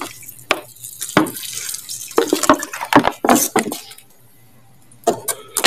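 Water poured from a plastic bottle splashing and dripping onto snake plant leaves and soil, in uneven spurts with sharp clicks and crackles, stopping about four seconds in. Two more short knocks come near the end.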